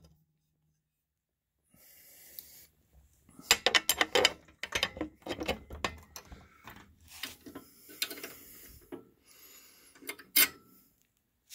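Metal cash drawer of a coin-op vending machine being worked back into place by hand: a fast run of rattles and clicks, then scattered rattling and one sharp click near the end.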